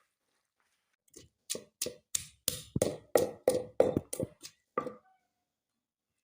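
A quick run of about a dozen sharp knocks or claps, roughly three a second, starting about a second in and stopping near five seconds.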